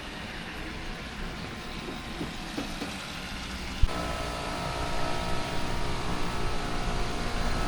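A central air conditioner's outdoor condensing unit starting up: a sharp click about four seconds in, then the compressor and condenser fan come on and run with a steady hum. The unit is running on a newly installed run capacitor, fitted after the old 45 µF capacitor measured only 38.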